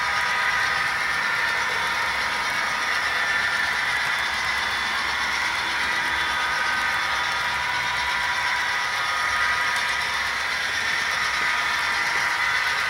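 HO scale model freight cars rolling past on the track: a steady clatter of the wheels running on the rails.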